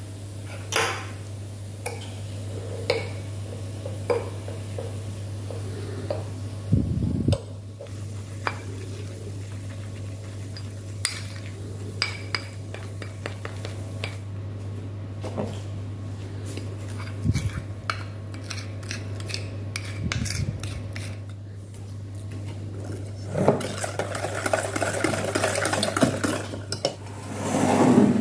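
A spoon clinking and scraping against a small ceramic bowl while stirring baking powder into lemon juice, in scattered taps with a longer run of scraping near the end. A steady low hum sits underneath.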